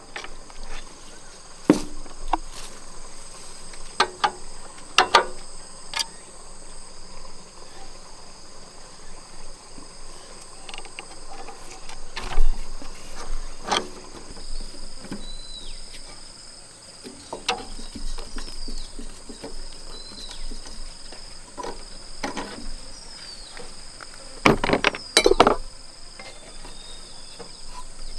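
A steady high-pitched drone of insects, with scattered clinks and knocks of hand tools on an old diesel engine as its outer parts are unbolted. A cluster of knocks near the end is the loudest part, and a few short chirps come in the middle.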